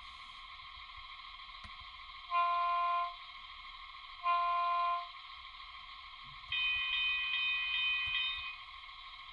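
Model Siemens Sprinter diesel railcar's sound-decoder horn playing through a small onboard speaker over a steady hum. It gives two short blasts about two seconds apart, then a longer, higher-pitched blast of about two seconds.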